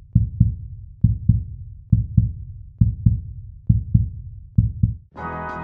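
Heartbeat sound effect: six low double thumps, a little under a second apart. Music starts near the end.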